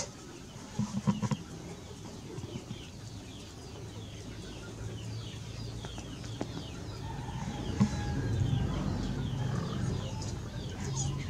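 Chickens clucking, the low calls growing louder in the second half, over a steady run of quick, high falling chirps. A few light knocks sound about a second in.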